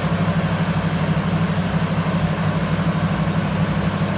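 1971 Ford Bronco's 302 V8 idling steadily, its low note pulsing fast and evenly.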